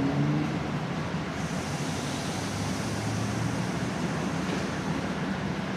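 Railway station platform ambience under a train shed: a steady low engine hum under an even hiss.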